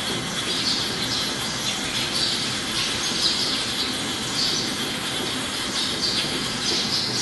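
CNC slotting machine running: a steady mechanical noise with a high hiss that swells and fades irregularly, roughly once a second.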